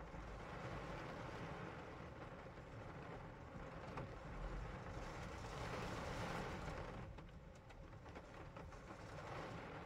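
Steady rain-and-car ambience heard from inside a car: an even hiss over a low rumble, swelling a little about six seconds in.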